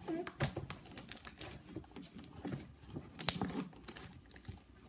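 Wooden chopstick stirring glue slime in a cup: irregular sticky clicks, scrapes and taps, with one sharper knock a little past three seconds in.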